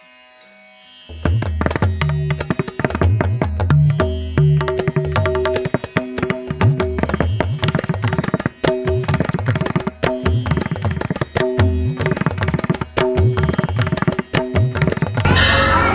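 Background music in Indian classical style. After a soft plucked-string opening, loud tabla drumming over sustained notes comes in about a second in. Near the end the music gives way to a noisier live sound.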